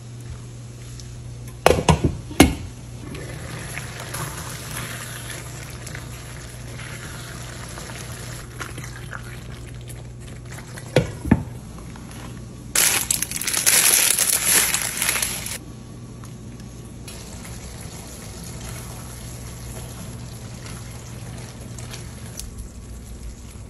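Stovetop cooking sounds with a steady low hum: a wooden spoon knocks against a skillet of tomato meat sauce a few times about two seconds in and again near eleven seconds, and a loud rushing, rattling noise lasts about three seconds from about thirteen seconds as dry pasta is tipped from its box into a pot of boiling water.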